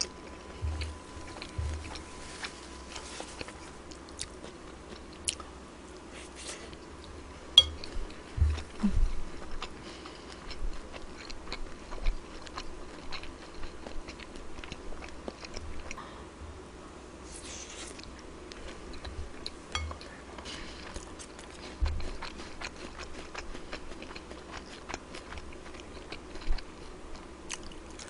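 Close-up chewing and biting of food, with crisp crunches and small wet clicks, and now and then a sharper click.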